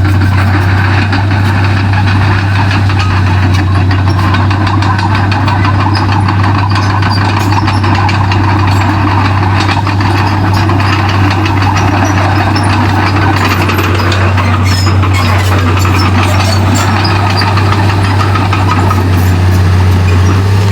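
Komatsu D31P bulldozer's diesel engine running steadily with a deep, constant drone.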